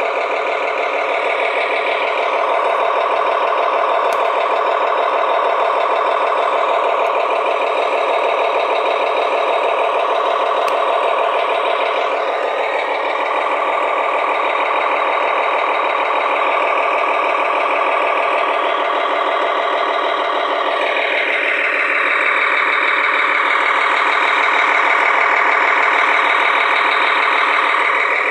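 Simulated diesel truck engine running from the RC wrecker's electronic sound unit, played through a small speaker with no deep bass. It holds steady, with its pitch shifting a few times.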